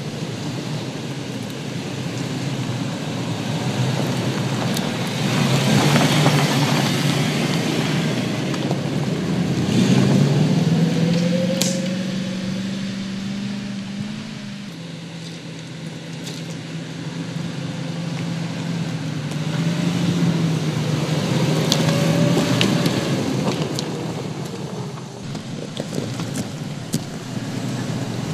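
Toyota Land Cruiser's V8 engine pulling at low revs off-road, its pitch stepping and bending as the load changes, over the crunch of tyres on dirt and loose stone. It swells louder as the SUV comes close, about six and ten seconds in and again past twenty seconds, with a few sharp clicks of stones.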